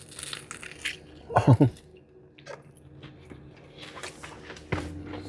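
A person biting into and chewing a crispy fried kubba halab, with crunches in the first second and again near the end. A short voiced sound, like an appreciative hum, comes about a second and a half in.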